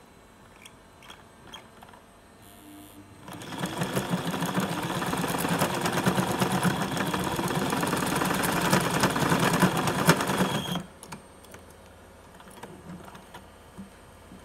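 Sewing machine stitching a seam: it starts a few seconds in, runs at a fast even stitch rate for about seven seconds and stops abruptly. A few small clicks of handling come before and after it.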